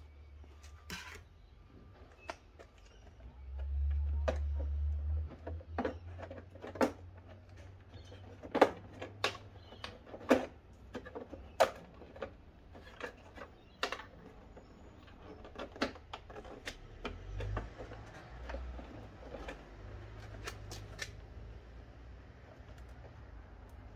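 Irregular plastic clicks, taps and knocks as a Yamaha FJR1300's plastic inner fairing panel is handled and pressed back into place on the bodywork, with a brief low rumble about four seconds in.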